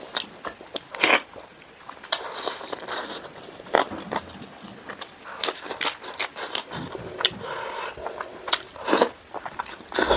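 Eating sounds: biting and chewing a spicy chicken wing, then a leaf of fresh lettuce, with irregular sharp crunches.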